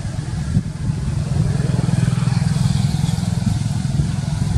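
A motor vehicle engine running steadily, a low rumble that grows louder about a second and a half in.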